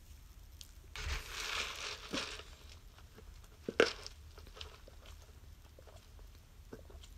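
A large drink cup being handled and sipped through a straw: a soft rustle as it is picked up, one sharp click about four seconds in, then a near-quiet sip.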